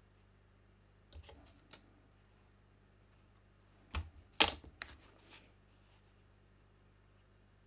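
Light handling of craft materials: a soft rustle of cardstock about a second in, then a few sharp taps and knocks near the middle, the loudest about four and a half seconds in, as the embossed card and the embossing-powder tray and plastic powder box are moved and set down on the work mat.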